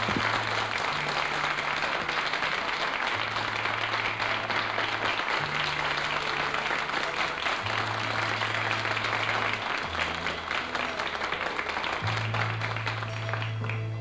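Audience applauding steadily over a dance band's instrumental passage. The bass holds long low notes that change every two seconds or so. The clapping dies away near the end.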